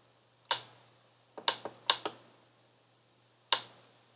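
Computer mouse button clicking: about six short, sharp clicks at irregular intervals, some in quick pairs.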